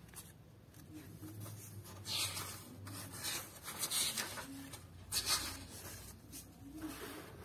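Paper pages of a textbook being turned by hand: several short rustles of paper sliding and flipping.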